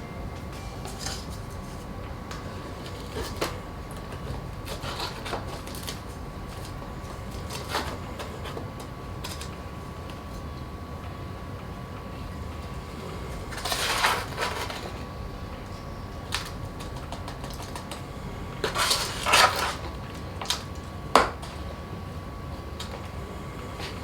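Hands repotting a plant: scattered rustles, scrapes and clicks of potting soil and a pot being handled, with louder bursts of rustling about 14 and 19 seconds in and a sharp knock a little after. A faint steady hum runs underneath.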